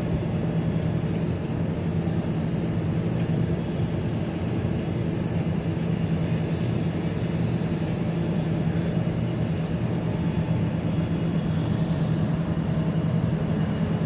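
Steady low mechanical drone with a constant hum, unchanging throughout.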